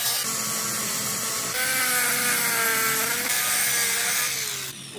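Angle grinder with a thin cutting disc cutting into a welded steel axle tube: a steady hiss of grinding with the motor's whine over it. Late on the whine sinks in pitch as the disc bites, and the sound falls away near the end.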